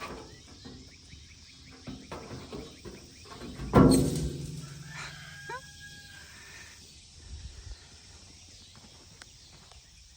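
Chickens calling, with a rooster crowing, and a sudden loud sound about four seconds in.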